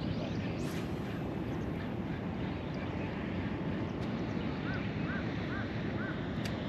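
A steady low rushing noise, with a bird giving four short, arched calls a little under half a second apart, starting near the five-second mark.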